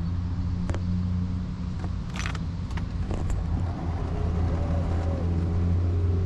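Mobility scooter's electric drive motor humming steadily as it rolls along, with a few sharp clicks or taps over it.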